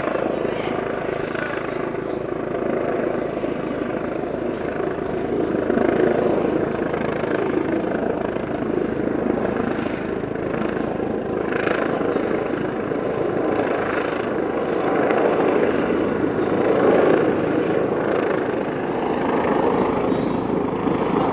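Police helicopter flying overhead: a steady rotor and engine drone that swells slightly a couple of times as it circles.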